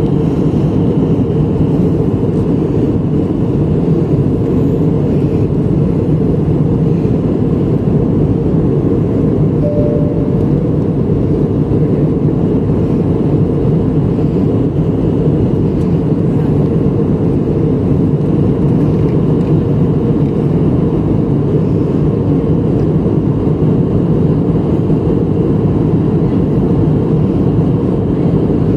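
Steady cabin noise of a jet airliner in flight: engine and airflow rush heard from a window seat. It is deep and even and does not change in level.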